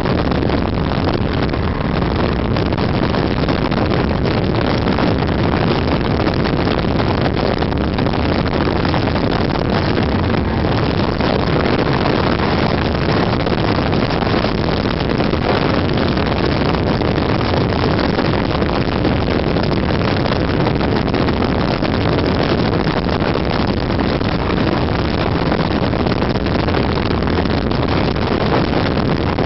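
Snowmobile engine running steadily while travelling along a trail, mixed with wind noise on the microphone.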